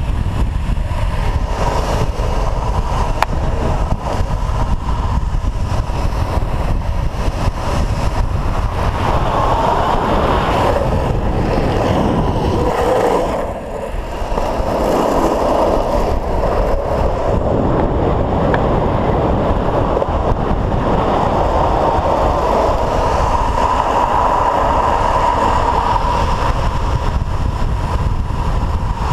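Wind buffeting a board-mounted action camera's microphone at downhill speed, over the rumble of urethane longboard wheels rolling on asphalt. The noise swells and eases with speed, with a brief lull about halfway through.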